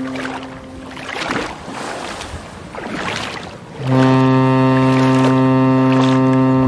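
Motorboat ride through a narrow channel: rushing water and wind noise that rises and falls. About four seconds in, the outboard engine's drone cuts in abruptly, a steady low note at constant speed.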